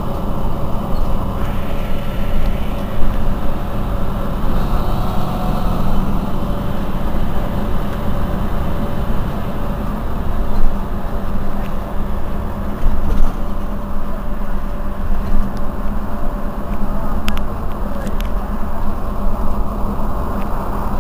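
Mercedes-Benz Citaro C2 city bus running, a steady engine drone with low rumble. Two short, sharp clicks come about three-quarters of the way through.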